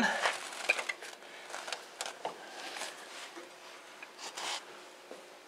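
Faint scraping and rubbing of metal with a few light clicks as the engine mount bracket is worked into place, with a louder scrape about four seconds in.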